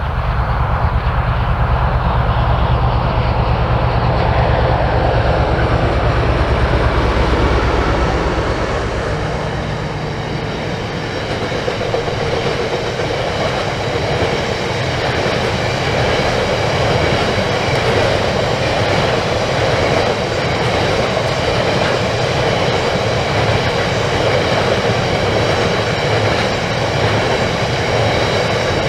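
Class 60 diesel locomotive engine running as it passes, a deep drone for the first several seconds. After that a long rake of hopper wagons rolls by, wheels clattering over rail joints, with a thin high ringing from the wheels.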